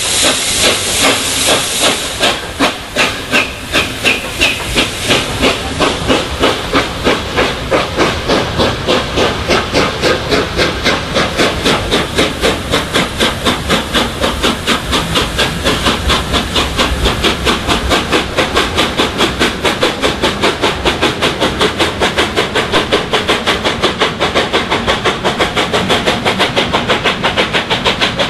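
LNER A4 Pacific steam locomotive No. 4464 Bittern, a three-cylinder engine, pulling away with its train: a steady hiss of steam for the first couple of seconds, then rhythmic exhaust beats that quicken from about two to about five a second as it gathers speed.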